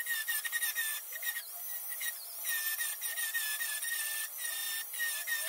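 Angle grinder grinding the steel body panel below a car's rear window: a high whine over a harsh grinding hiss, easing off briefly about a second and a half in, then biting again.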